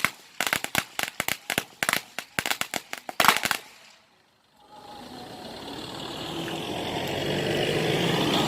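A long string of firecrackers popping in a rapid, irregular crackle, with one louder bang about three seconds in, then cutting off. After a brief gap, a steady rumbling background noise slowly grows louder.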